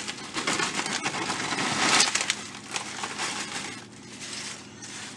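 Fritos corn chips pouring from their crinkly bag onto a casserole in a glass baking dish, a dense rattle of crisp chips and rustling bag, loudest about two seconds in. It then eases into softer rustling as a hand spreads the chips across the top.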